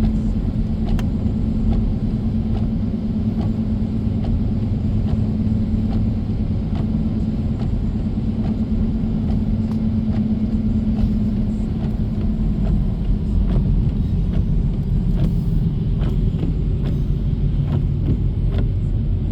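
Car driving, heard from inside the cabin: a steady low road rumble and an engine hum that drops in pitch about two-thirds of the way through as the car slows, with scattered light ticks over it.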